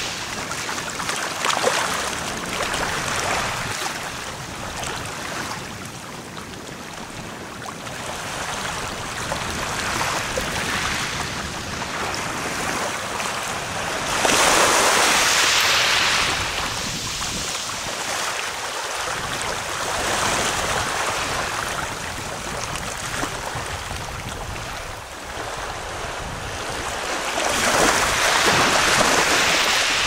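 Small waves washing in over a pebbly shore and breaking around red sandstone rocks, a steady wash that swells into louder surges about halfway through and again near the end.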